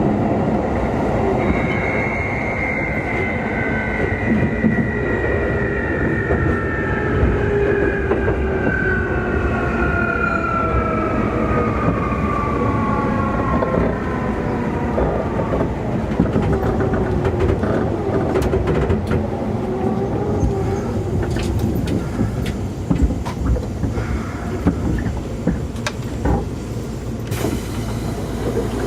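Traction motors of a Keikyu 2000 series car, thought to be Mitsubishi-made, whining and falling steadily in pitch as the train brakes and slows. In the second half the wheels clatter over rail joints and points as the train nears a stop.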